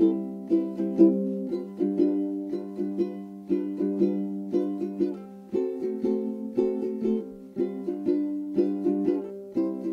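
Background music: a steady picked tune on a plucked string instrument, each note struck sharply and fading.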